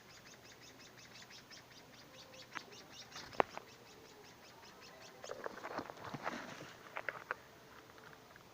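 Small birds chirping: a quick run of short, high chirps at about six a second, then a louder cluster of chirps past the middle. A sharp click a little over three seconds in.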